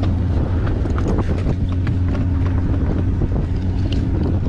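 Fishing boat's engine droning steadily at a low pitch, with wind buffeting the microphone and a few light knocks of handling on deck.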